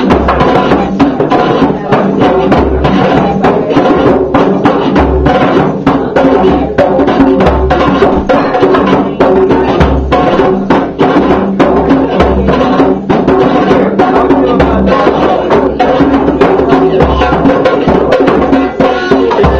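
Hand drums (djembes and a frame drum) played by several people together in a dense, steady rhythm of sharp slaps and deep bass tones, with a guitar playing along.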